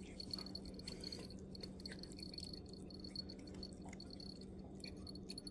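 Chihuahua puppy chewing soft food taken from a hand, heard as faint, scattered wet clicks and smacks.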